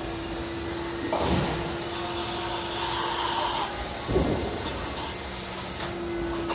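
Bowling ball drilling machine running, its bit boring into the ball for an interchangeable thumb insert: a steady motor hum with a cutting hiss and a couple of knocks. The hiss stops shortly before the end.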